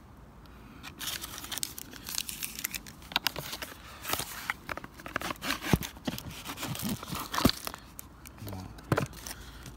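Packaging being handled: paper and plastic crinkling and rustling in quick, irregular crackles, starting about a second in and easing off near the end.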